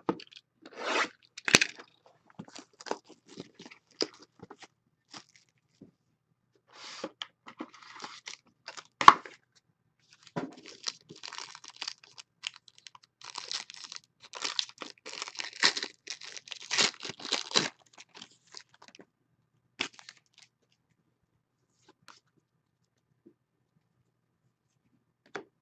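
A sealed trading-card box and its foil pack wrapper being torn open and crinkled, a dense stretch of tearing and crinkling in the middle, with scattered clicks and rustles of card and packaging handling around it.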